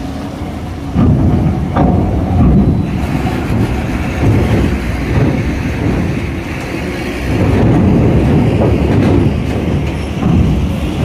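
Heavy diesel trucks rolling off a ferry's steel ramp onto a steel-grate dock: engines running, with clanking as the wheels cross the ramp plates and grating.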